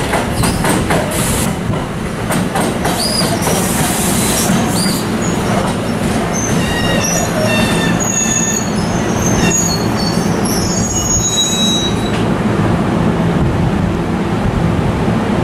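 Multi-level commuter train rolling into the station over a steady low rumble. Its wheels squeal in short, high-pitched tones that come and go through the middle of the passage.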